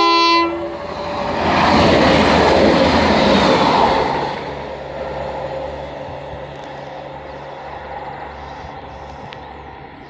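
The last note of a train's multi-tone horn, then the loud rush of a train passing close by. After about four seconds it falls away to a quieter, steady low drone that slowly fades.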